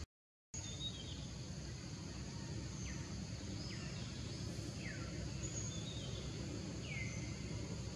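Forest ambience: a steady low background noise with scattered bird calls, several short whistles sliding downward and a few thin high chirps. The sound drops out completely for about half a second right at the start.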